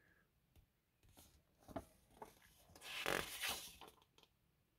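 Paper pages of a small magazine rustling as it is handled, with a few faint ticks and then a short rustle about three seconds in.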